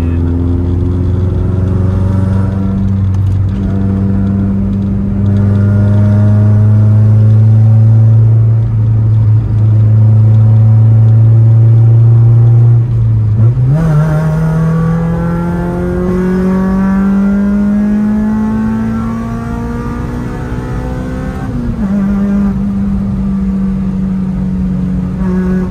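Honda Civic EK4's 1.6-litre VTEC four-cylinder heard from inside the cabin, cruising at steady revs for the first half. About halfway through, the revs jump up sharply and then climb steadily under acceleration. They drop a little at a gear change near the end.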